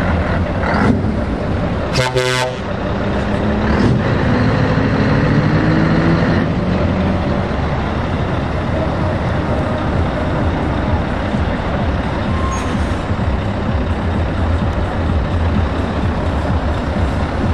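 Scania V8 trucks driving slowly past, engines running steadily. A short horn blast sounds about two seconds in, and then one engine's pitch rises as it pulls away.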